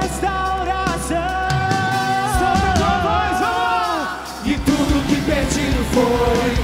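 Live band music with a singer holding long, wavering notes. A little after four seconds in the held line breaks off and drums and the band carry on, with a voice coming back in near the end.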